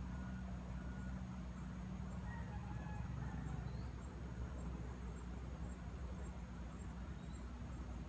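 Insects trilling steadily at a high pitch over a low steady hum, with a few faint short chirps in the middle and near the end.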